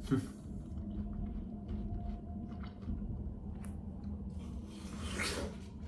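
Watermelon being chewed and bitten, with a run of small wet crunches from the juicy flesh and a longer, louder bite about five seconds in. A sharp knock comes right at the start.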